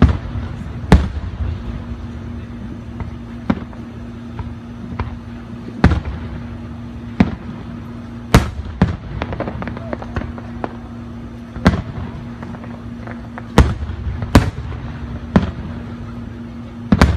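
Aerial fireworks shells bursting in the distance: about a dozen sharp bangs at irregular intervals, some alone and some in quick clusters, over a steady low hum.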